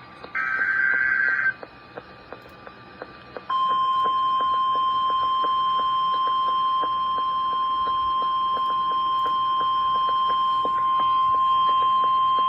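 The last burst of an Emergency Alert System SAME header, a second-long screech of warbling data tones, then after a short pause the NOAA Weather Radio 1050 Hz attention tone: one steady, unbroken beep held for about nine seconds. Together they open a severe thunderstorm warning. Faint regular ticking of radio static runs underneath.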